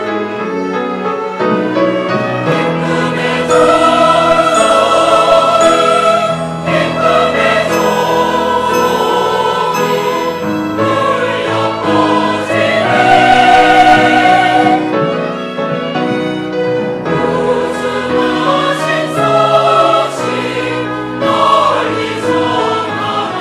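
Church choir singing an anthem in parts, with full, sustained chords.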